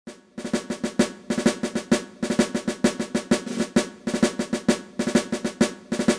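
Snare drum cadence: rapid, evenly spaced strokes broken up by short rolls and accents, starting about half a second in, played as a short intro piece.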